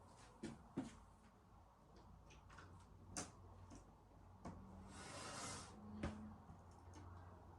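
Faint clicks and knocks of a plastic smoke-detector base and mounting parts being handled, with a short scraping rustle about five seconds in.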